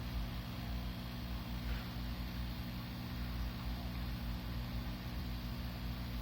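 Aquarium filter running with a steady hum and an even hiss of moving water.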